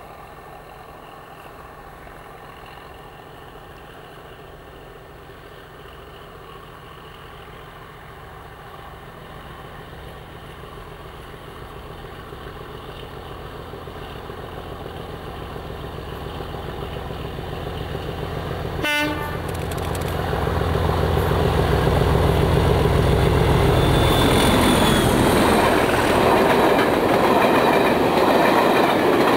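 English Electric Class 37 diesel locomotive approaching under power, its V12 engine note building steadily louder. A short horn blast sounds about two-thirds of the way in, then the locomotive and coaches pass close by with loud wheel and rail noise.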